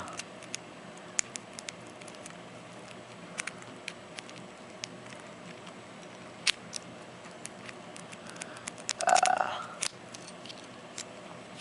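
Small sharp clicks and rattles of a padlock being handled and tugged to check that it is locked, scattered through the stretch, with a quick run of clicks about eight seconds in and a brief louder sound just after nine seconds.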